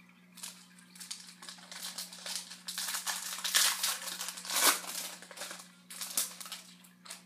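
Trading card pack wrapper being torn open and crinkled by hand, in irregular rustling spurts that are loudest about halfway through. A steady low electrical hum runs underneath.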